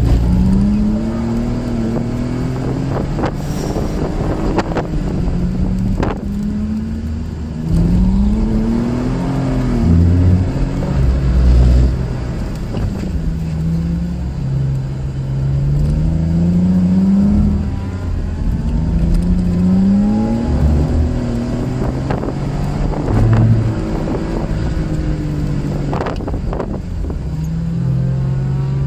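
A car's engine heard from inside the cabin while lapping a tight track at low to mid revs, its pitch rising as it accelerates out of corners and falling as it lifts off, several times over. A few brief thumps cut through.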